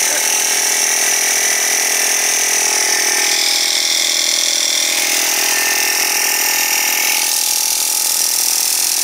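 Small 12-volt tyre-inflator air compressor running steadily, pumping air into a three-litre plastic bottle that serves as its air tank and building up pressure.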